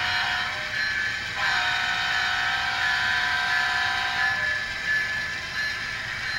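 Horn from the sound decoder of an HO-scale Union Pacific ES44AC model locomotive, played through its small onboard speaker. A short blast comes at the start, then after a brief gap a long held blast from about a second and a half to four and a half seconds in, over a steady rushing noise from the running train.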